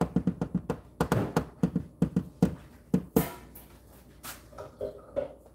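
Spoon stirring thick porridge in a stainless steel pot: a fast run of knocks and scrapes against the pot, then a louder knock about three seconds in, after which it goes quieter.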